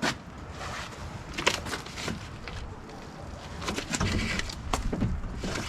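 Hand tools being handled, giving scattered short clicks and clinks at irregular intervals.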